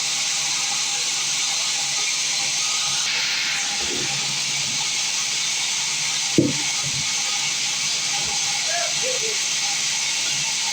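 Sawmill machinery running with a steady hiss, a faint voice now and then and a single sharp knock about six seconds in.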